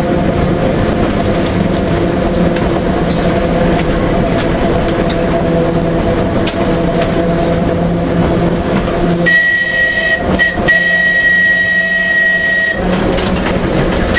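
Manx Electric Railway tramcar running along the track with a steady hum from its motors and gearing. About nine seconds in, its whistle sounds a high, steady note with a brief break, for about three and a half seconds, as a warning for a level crossing.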